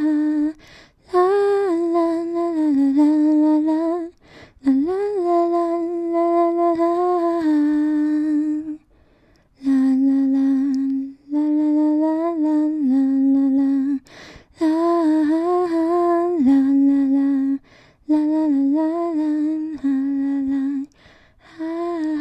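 A single voice humming a slow wordless tune, holding long notes that step up and down in pitch, in phrases of a few seconds separated by short pauses.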